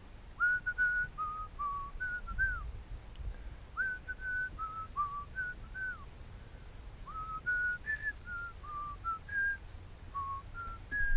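A person whistling a tune: three phrases of short, held notes that step up and down in pitch, with brief pauses between phrases.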